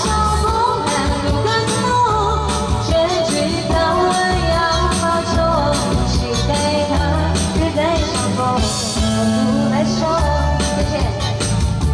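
A pop song playing: a singing voice over a band accompaniment with a steady beat.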